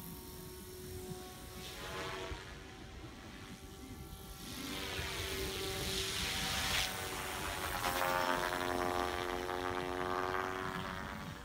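Radio-controlled model helicopter flying aerobatics: a whining rotor and motor note that rises and falls in pitch as it manoeuvres, loudest in the second half.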